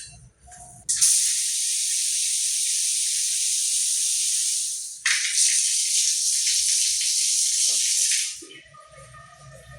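Loud steady hiss in two long bursts of about three and a half seconds each. The second starts about five seconds in.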